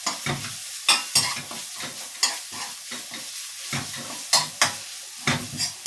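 Red curry paste frying in a wok, with a steady sizzling hiss, while a spatula stirs and scrapes it against the pan in irregular strokes about twice a second.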